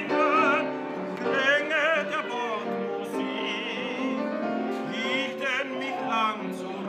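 A man singing in operatic style with strong, wide vibrato, accompanied by piano.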